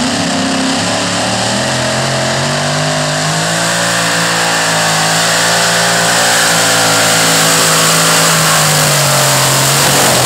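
Modified pulling tractor's engine running hard at full throttle under load as it pulls the sled, a loud, steady note that wavers slightly in pitch.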